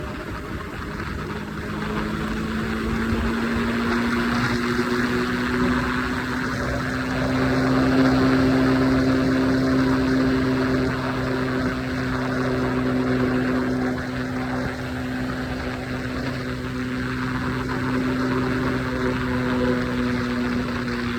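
Triumph Scrambler 400X's single-cylinder engine pulling steadily at highway speed, its note rising gently over the first several seconds and then holding level, with a steady rush of wind noise.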